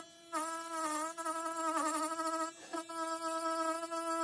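Handheld rotary tool running at high speed with a steady high whine as its small disc works over the metal base plate of a 1950s GE fan, wavering slightly in pitch. It drops out briefly right at the start and again about two and a half seconds in.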